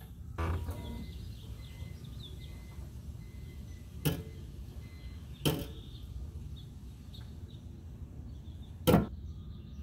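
Four short, sharp metallic knocks, one about half a second in, two more around four and five and a half seconds, and the loudest near the end, while the bare front hub and steering knuckle are swung round. Faint bird chirps in the background.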